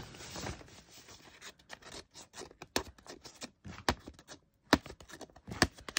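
Brown paper packaging being handled and pulled open by hand, giving irregular crackles and scratches.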